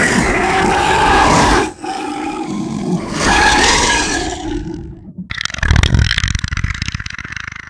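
Alien monster sound effect: a loud creature roar, a quieter growl, then a second roar about three seconds in. It gives way to a fast rattling, clicking growl that fades toward the end.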